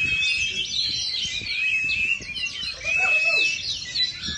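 Oriental magpie-robin singing a rapid, varied run of whistles, sweeping notes and trills, dense and overlapping.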